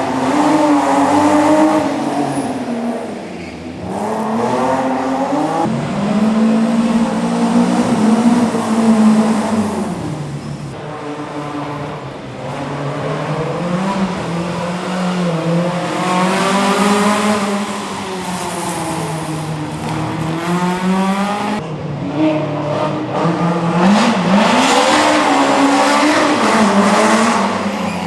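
Rally car engine under hard acceleration, its pitch repeatedly climbing and then dropping back as it shifts gear or lifts off.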